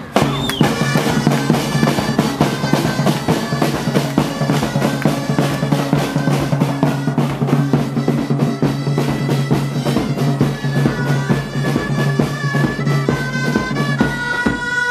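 Street band of snare and bass drums beating a fast, steady rhythm under wooden wind pipes playing a tune over a steady low drone. Near the end the drone stops and the pipes' melody stands out.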